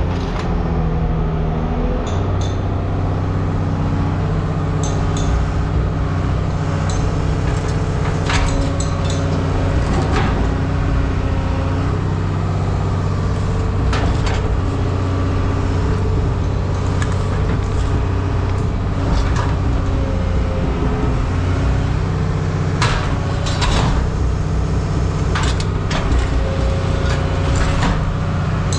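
An engine running steadily, with scattered metal clanks and rattles over it.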